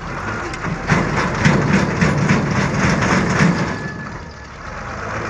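Heavy dump truck engine working under load as the truck tries to drive out of mud. It grows louder about a second in, holds with a rapid pulsing for a couple of seconds, then eases off near the end.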